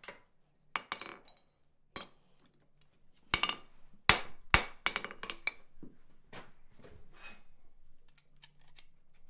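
Blacksmith's hand hammer striking a small hot steel flat-bar lug on an anvil: sharp, ringing metal-on-metal blows at irregular intervals, the loudest around four seconds in, followed by lighter clinks of iron and tongs being handled.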